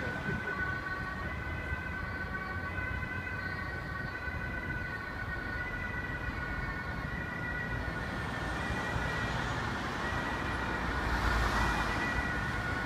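Emergency vehicles at a standstill: a low engine rumble with several steady high tones that hold their pitch throughout, growing a little louder near the end.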